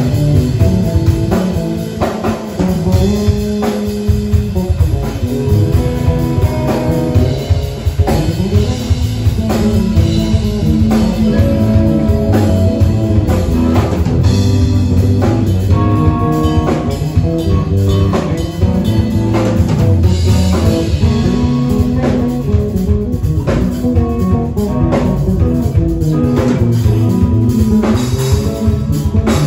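Live instrumental band playing loud: an electric guitar line over electric bass and a drum kit, with the drums hit steadily all the way through.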